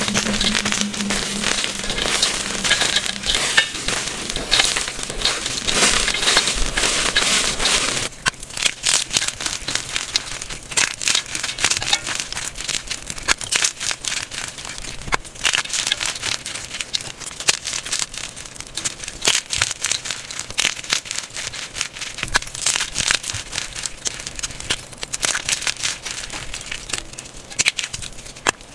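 Hands crushing and crumbling chunks of gym chalk: dense, crunchy crackling. About eight seconds in it changes to quieter, sparser crunches.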